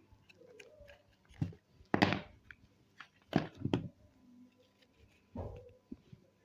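A handful of knocks and clatters. The loudest comes about two seconds in, a close pair follows about three and a half seconds in, and a last one comes near the end.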